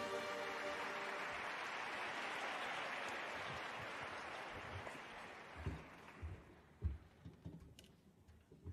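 Audience applause, fading away over about six seconds, followed by a few soft low thumps near the end.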